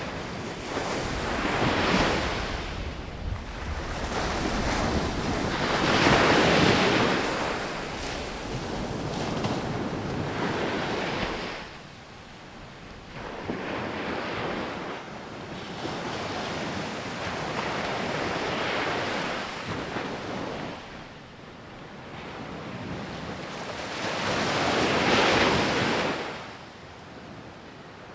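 Ocean surf breaking on a beach: waves crash and wash in repeated swells every few seconds, with quieter lulls between them. Wind buffets the microphone throughout.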